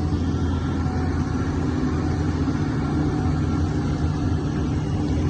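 Large diesel engine running steadily with a low, even hum.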